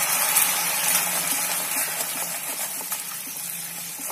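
Melted jaggery sizzling and bubbling in a hot pan just after a splash of water is stirred in, a steamy hiss that slowly dies down, with light ticks of bubbles and the spatula.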